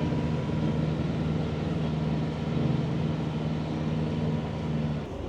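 A sailboat's inboard diesel engine running steadily at low revs while the boat holds position. The engine sound cuts off abruptly just before the end.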